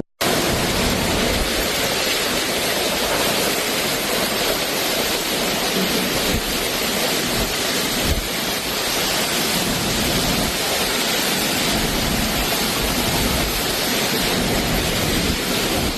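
Heavy hurricane rain and wind making a steady, dense rush of noise that keeps up without letup.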